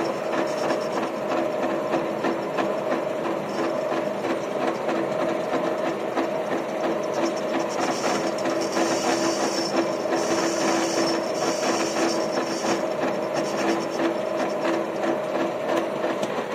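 Lathe running with a steady gear hum and a rapid mechanical rattle, while the cutting tool, fed by hand on the compound slide set at 45°, cuts a chamfer on the end of a metal workpiece; a hissing scrape from the cut grows louder from about 8 to 13 seconds in.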